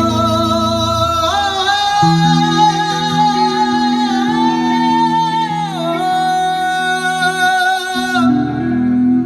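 A male voice sings a wordless alaap, holding long notes and sliding slowly between them, over a steady instrumental drone.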